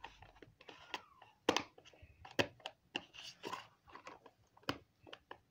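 Irregular sharp clicks and taps from a small pink plastic toy baby-wipes case being handled, with light rustling in between.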